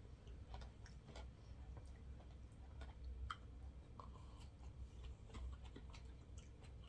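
Faint eating sounds: scattered small clicks and ticks, with soft chewing, over a steady low hum.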